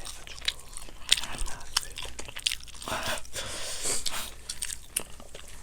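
Close-up chewing and biting into fried chicken: a steady run of irregular crisp crunches and wet mouth sounds.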